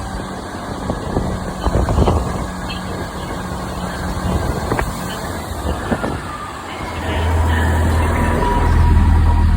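Diesel multiple-unit train running, with scattered clicks and knocks over a low hum, then a louder steady low engine drone that sets in about seven seconds in.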